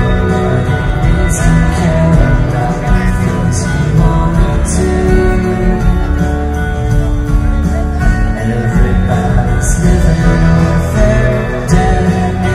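Live rock band playing loud through a PA, with electric guitars, bass and drums, heard from within the crowd on a phone microphone. Bright cymbal hits stand out several times.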